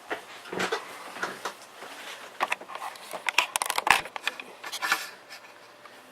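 Thin metal I/O shield being pushed and snapped into the rear opening of a PC case: an irregular run of clicks and metal scrapes, busiest in the middle.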